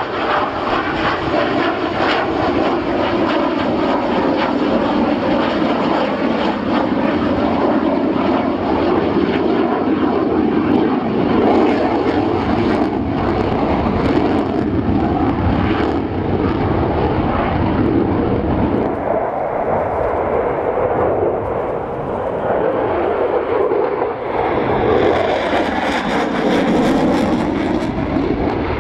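Jet roar from the twin General Electric F404 turbofan engines of an F/A-18C Hornet flying past, loud and continuous. The tone shifts as the jet manoeuvres, and in the last few seconds, with afterburners lit, a bright hiss rises over the roar.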